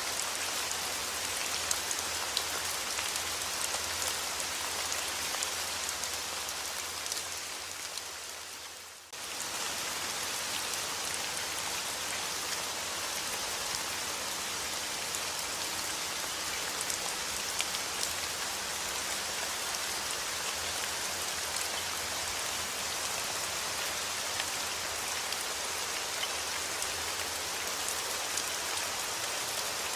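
Steady rain falling on a surface, a dense patter of drops with scattered sharper drop hits. About nine seconds in the rain fades down and then cuts straight back in at full level.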